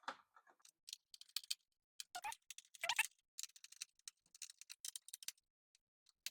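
Small screwdriver turning the retaining screws of a desktop PC's CPU cooler: a run of small, irregular clicks and scrapes of metal and plastic, with two louder knocks about two and three seconds in.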